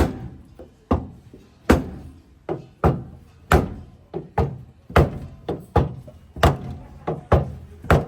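Hammer blows on a car's body metal during panel repair, about fifteen strikes at an uneven pace of one to two a second, each with a short ringing decay.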